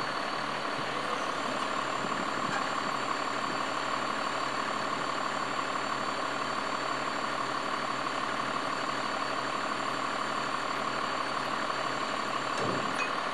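Crane engine running steadily at idle, an even mechanical drone with a faint steady high whine over it.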